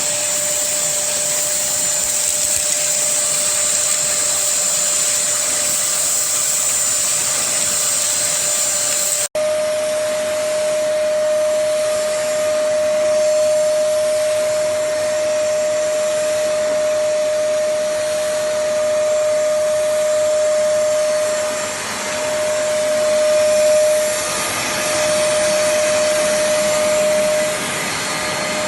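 Black+Decker BXVC30XTDE 1600 W wet/dry vacuum running with a steady, high motor whine and a rush of air. It cuts off abruptly for an instant about nine seconds in, then carries on, and its level dips and swells near the end.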